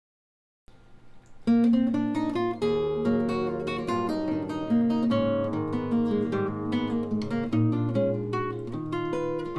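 Guitar playing strummed and plucked chords, coming in faintly from silence and turning full and loud about a second and a half in.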